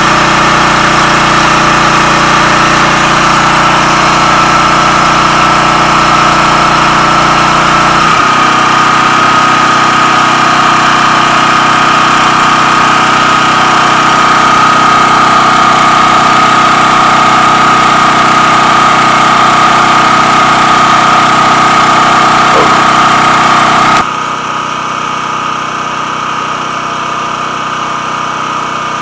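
Portable generator engine running steadily with a whine. Its deep low rumble falls away suddenly about eight seconds in, and the whole sound drops sharply in loudness near the end.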